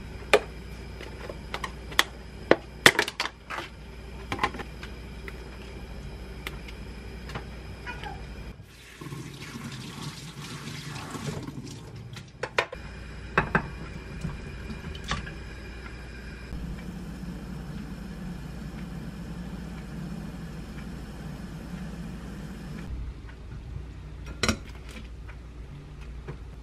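Kitchen prep sounds: water running from the sink tap, with scattered sharp clinks and knocks of a glass bowl, a stainless strainer and a pot. A steady low hum runs for several seconds past the middle.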